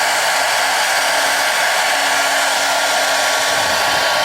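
Handheld hair dryer running on its hot, high setting: a steady rush of air with a constant whine from its motor.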